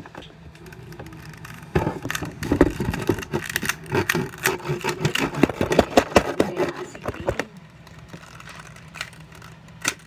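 Handling noise right at a phone's microphone: a rapid run of clicks, knocks and rubbing as the phone is picked up and moved, going quieter after about seven seconds with one sharp knock near the end.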